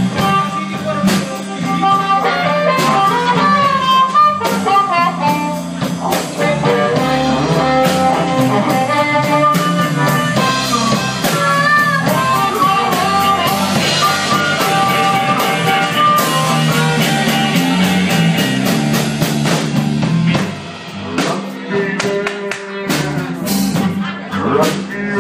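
Live blues band playing an instrumental passage: an electric guitar lead line with sliding, bent notes over a drum kit. About twenty seconds in it drops to a quieter, sparser passage.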